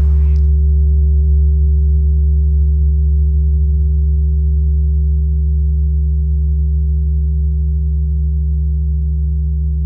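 A loud, low droning tone made of several deep notes held together, steady and very slowly fading. In the first half second the tail of a hiss dies away.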